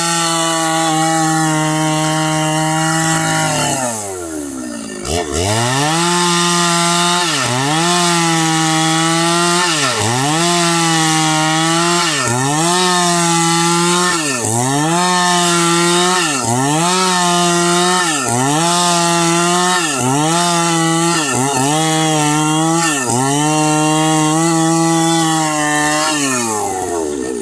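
Two-stroke chainsaw cutting a fallen hardwood log into boards. The engine runs at high revs, drops sharply about four seconds in and picks up again, then its speed dips and recovers about every second and a half as the saw works through the cut, falling off near the end.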